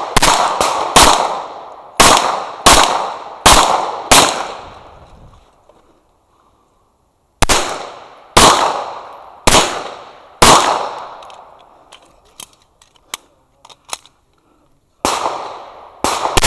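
Gunshots at a shooting match, fired one at a time at about one a second, each followed by a ringing echo. They come in strings, with a pause at about 5 to 7 seconds and a longer one from about 11 to 15 seconds, when only a few faint clicks are heard.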